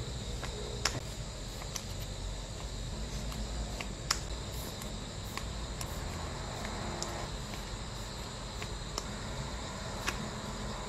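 Clear plastic photocard sleeves crinkling and ticking as they are peeled and handled, with a few sharper clicks, over a steady low hum.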